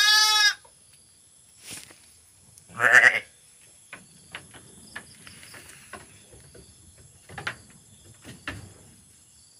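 Sheep bleating twice: a high, wavering bleat at the start and a second, lower bleat about three seconds in. After that come faint rustling and a few light knocks.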